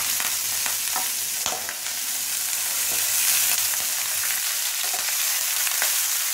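Shallots and green chillies sizzling in hot oil in a nonstick pan, stirred with a wooden spatula. A steady hiss runs throughout, broken now and then by short light clicks.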